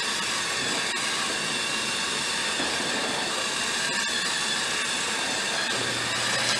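Waring commercial Big Stix immersion blender with its whisk attachment running steadily, whipping a large batch of cooked potatoes into mashed potato.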